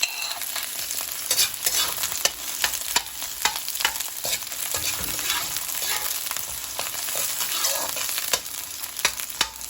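Chopped onion sizzling in hot cooking oil in a wok, with a steady hiss and repeated sharp scrapes and clicks of a utensil stirring it.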